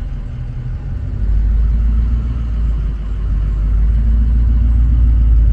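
Low, steady rumble of a vehicle driving, heard from inside the cab.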